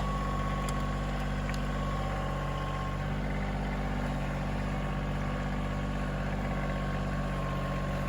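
An engine idling steadily at constant speed.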